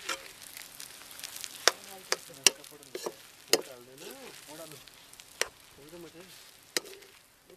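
Metal spoon stirring egg fried rice in a steel kadai, clinking and scraping sharply against the pan several times over a soft frying sizzle.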